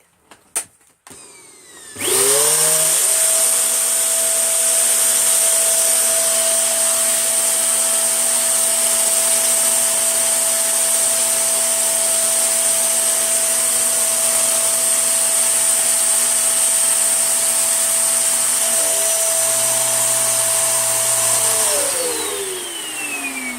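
Tesco Eco Pet V.CU12P vacuum cleaner, with a couple of clicks before it is switched on about two seconds in. Its motor whine climbs quickly to a steady high run with strong suction hiss. Near the end it is switched off and winds down, falling in pitch.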